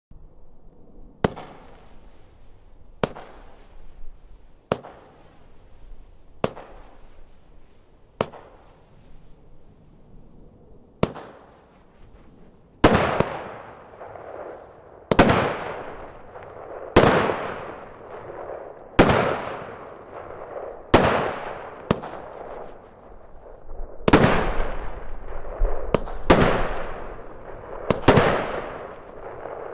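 Consumer firework cake firing shot after shot, roughly one every two seconds. The first half-dozen are short sharp reports. From about 13 s in the reports are louder, some come in quick pairs, and each trails off in a long fading crackle from the glitter bursts.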